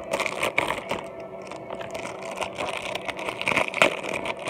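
Plastic toy packaging being handled close to the microphone, rustling with small knocks, and one sharper knock near the end.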